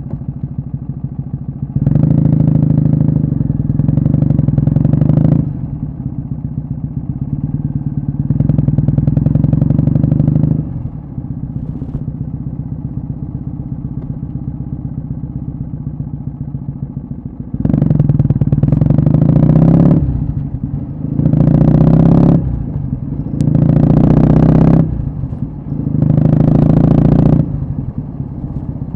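Kawasaki W650 air-cooled vertical-twin engine through a short Yamato Stainless Caburton muffler, riding under load. There are two long throttle pulls, a steadier stretch, then four short pulls in quick succession from about eighteen seconds in, with brief dips between them like up-shifts.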